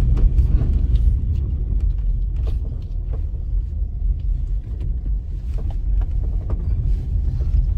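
Steady low road rumble of a moving vehicle, with scattered light knocks and rattles.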